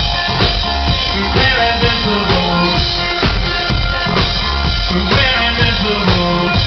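Loud live band music with a drum kit keeping a steady beat.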